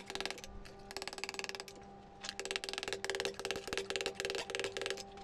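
Rapid light blows of a small ball-peen hammer on the inner lip of a flat steel ring on an anvil, stretching the metal so the ring opens up. Quick runs of sharp metallic taps, several a second, with a ringing tone under them and a brief pause about two seconds in before the tapping resumes.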